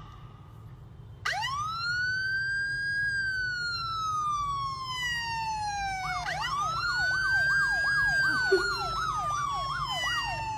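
Emergency vehicle siren: a long wail that rises quickly, then slowly falls. From about six seconds in, a second wail rises again with a fast yelping warble layered over it. A low steady rumble lies underneath.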